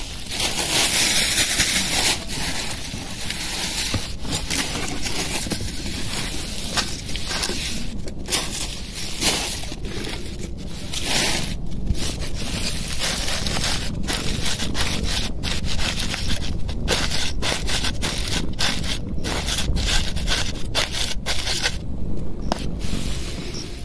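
Continuous rustling and scraping close to the microphone, from the phone being handled and brushed through grass, broken by many brief dips.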